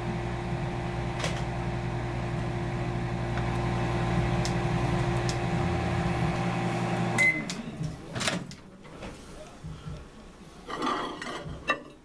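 Hamilton Beach microwave oven running with a steady hum while heating a bowl of snow. About seven seconds in it is stopped with a short beep and the hum winds down. A sharp click of the door follows, then the bowl is handled.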